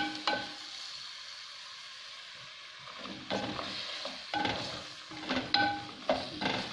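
Sliced carrots frying with onions and spices in an earthenware tagine, a low steady sizzle. A wooden spoon knocks against the dish at the start, and from about three seconds in it stirs and scrapes with repeated knocks, several ringing briefly off the clay.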